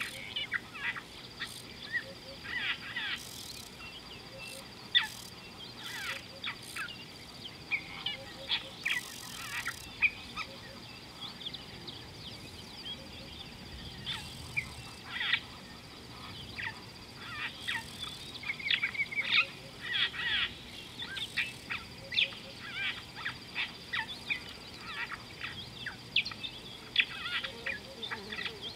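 Many birds chirping and calling, a busy chorus of short, sharp high calls that grows denser in the second half.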